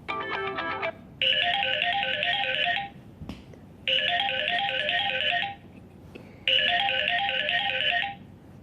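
A Samsung Galaxy J4+ built-in ringtone playing. After a brief melodic phrase in the first second, a trilling electronic ring sounds three times, each about a second and a half long, with short pauses between.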